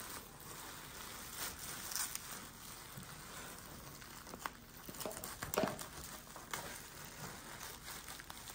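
Plastic bubble wrap crinkling and rustling as it is pulled apart and cut with scissors, with a few faint snips and clicks scattered through.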